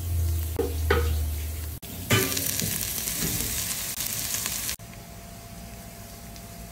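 Oil sizzling in a pan as spices are tempered: dried red chillies and seeds, then chopped garlic, ginger and ground spices such as turmeric. A low hum runs under the first couple of seconds, the sizzle is loud from about two seconds in, and it drops to a softer sizzle after about five seconds.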